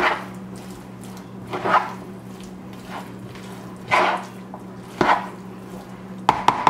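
Potato salad being stirred with a metal utensil in a plastic bowl as mayonnaise is mixed in: a handful of wet, scraping strokes, with a quick cluster of clicks of the utensil against the bowl near the end. A steady low hum runs underneath.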